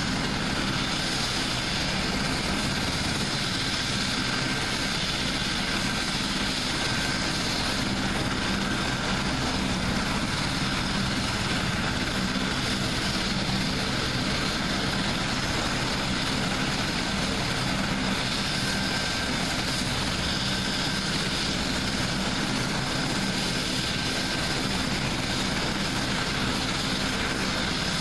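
AgustaWestland HH-101A Caesar helicopter running on the ground with its main rotor turning: its three turboshaft engines and rotor give a steady rush with a constant high turbine whine.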